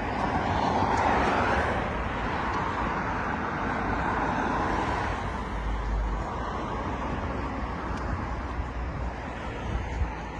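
Street traffic: a vehicle passes, its tyre and engine noise swelling about half a second in and fading over the next few seconds, over a steady hum of road traffic.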